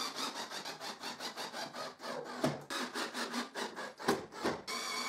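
Cordless drill driving a screw down through a plywood board into the wooden frame beneath, the screw biting into the wood in a fast, uneven run of clicks. Near the end the drill's motor whines steadily for a moment.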